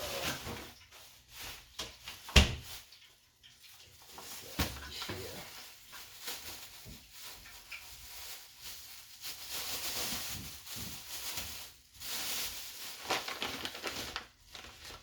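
Kitchen handling noises: a plastic bag of flour rustling and crinkling in irregular bursts, with a sharp knock about two and a half seconds in and a smaller one a couple of seconds later.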